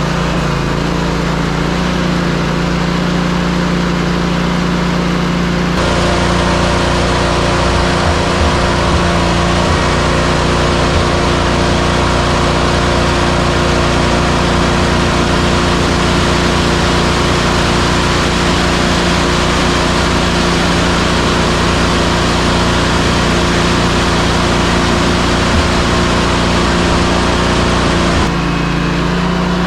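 Concrete mixer truck's diesel engine running steadily. A loud steady hiss comes in abruptly about six seconds in and drops away shortly before the end.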